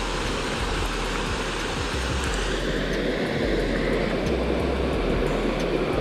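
Water pouring over a small concrete weir and rushing into the pool below: a steady, even rushing noise.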